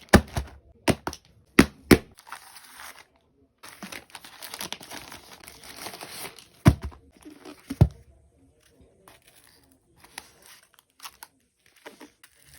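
Parcel packaging being torn open and crinkled by hand, with a few sharp taps and thumps as the package is handled and a long stretch of tearing and rustling near the middle.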